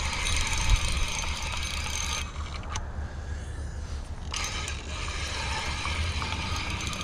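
Spinning fishing reel cranked to wind in line with a channel catfish hooked, its gears whirring. The cranking stops for about two seconds partway through, then starts again.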